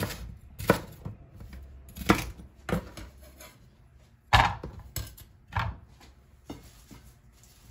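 Chef's knife cutting a red bell pepper on a wooden cutting board: a series of sharp, irregular knocks of the blade against the wood, the loudest a little over four seconds in, with quieter handling noise between.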